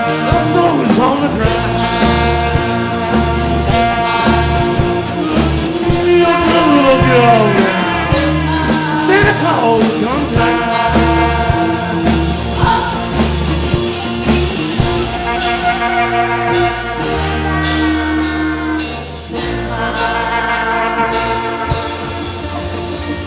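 Live rock-and-roll band playing a bluesy instrumental stretch, with gliding, bending lead lines about a third of the way in over a pulsing bass line.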